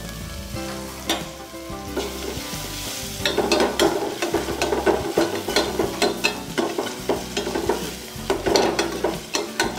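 Chopped garlic, ginger and green chilli sizzling as they fry in hot oil in a stainless-steel saucepan. From about three seconds in, a metal spoon scrapes and clinks against the pan as they are stirred.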